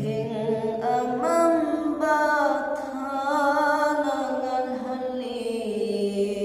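A man's solo voice singing a Manipuri naat (Islamic devotional poem) in a chanted style, holding long notes that climb about a second in and slide slowly down toward the end.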